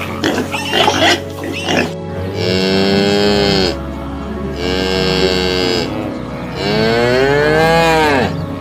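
A few short grunts, then three long mooing calls about a second apart, each rising and then falling in pitch.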